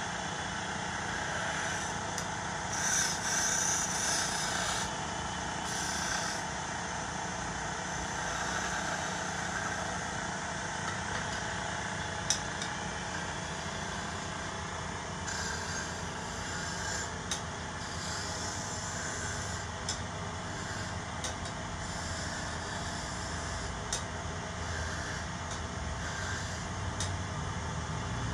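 Electric wood-turning lathe running steadily, with a few short stretches of hiss as the work is cut and one sharp click about twelve seconds in.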